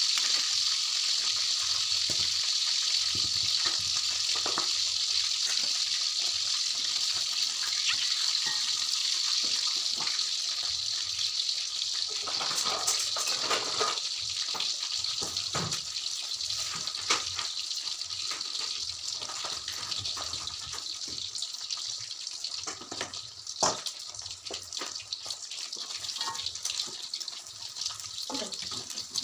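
Kitchen sounds: a steady hiss that slowly fades over the first twenty seconds or so, with occasional clinks and knocks of utensils or dishes.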